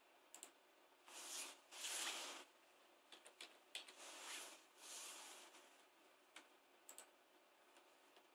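Near silence: room tone with a few faint, soft swells of hiss and several small clicks.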